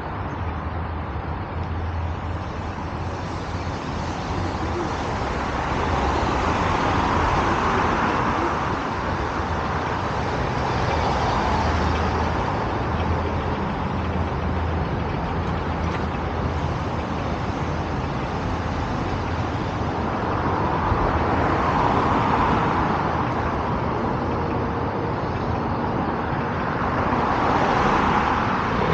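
Road traffic on a multi-lane road: a steady hiss of tyres and engines that swells several times as vehicles pass close by.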